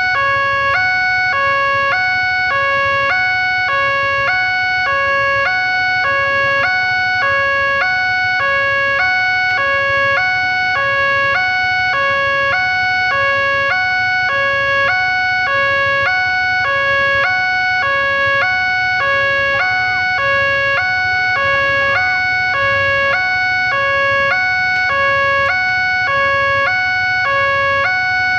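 Railway level-crossing warning siren sounding a steady two-tone alarm, switching back and forth evenly between a higher and a lower note over a constant high tone.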